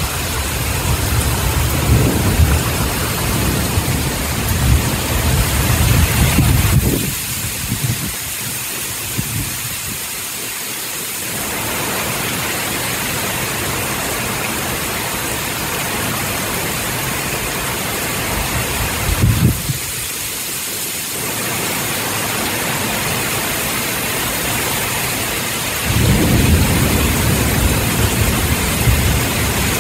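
Torrential rain pouring steadily, a dense even hiss. A low, uneven rumbling sits under it for the first seven seconds or so, swells briefly near the twenty-second mark, and returns for the last few seconds.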